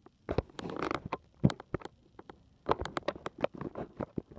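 Handling noise from small hard gear being moved about: a brief rattling run of light clicks and knocks about a second in, then a string of separate clicks and taps.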